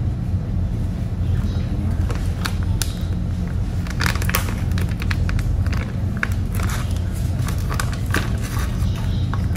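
Plastic food bag and wrapping crinkling in hands, in clusters of sharp crackles from about four seconds in until near the end, over the steady low drone of the ferry's engines.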